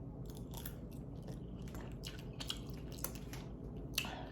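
Close-up chewing of a mouthful of spicy instant ramen noodles: irregular wet, crackly mouth sounds, with a sharper click about four seconds in.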